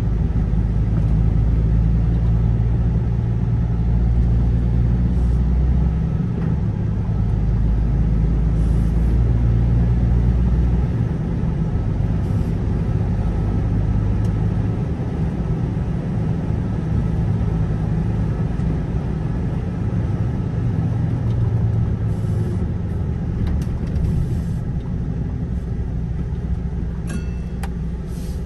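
Engine drone and road noise of a vehicle driving along a road: a steady low hum whose pitch shifts a few times with speed, with a few light clicks or rattles near the end.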